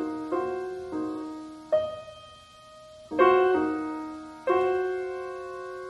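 Background piano music: slow, soft chords, each struck and left to ring and fade before the next.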